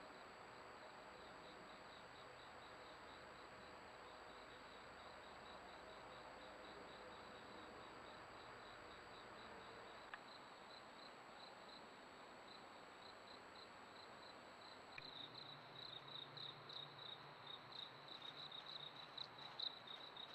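Faint insect chirping: a steady, high-pitched pulsing of about three chirps a second, which turns louder and more ragged about fifteen seconds in.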